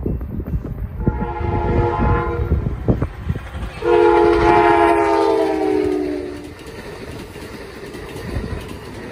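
Amtrak passenger train's locomotive air horn sounding two blasts, the second louder and longer and dropping in pitch as the train passes. Under it is the steady rumble of the train rolling along the rails.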